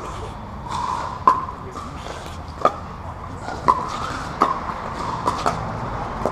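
Pickleball rally: paddles striking a hard plastic Dura 40 outdoor ball, with sharp, hollow pops of hits and bounces roughly once a second, starting with the serve.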